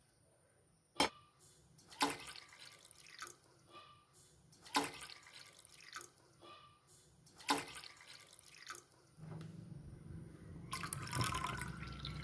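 Water splashing and dripping during kitchen preparation, broken by several sharp knocks, with a steadier rush of water near the end.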